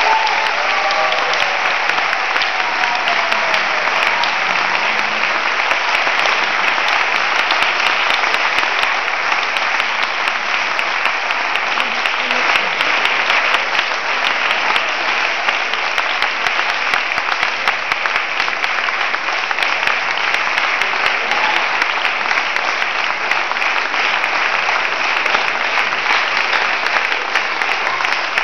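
Audience applauding: steady, dense clapping that keeps up at an even level.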